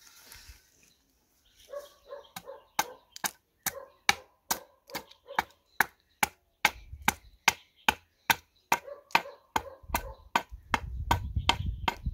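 Hand axe chopping at the end of a wooden board, a fast run of light, sharp strokes at about three a second that begins about two seconds in.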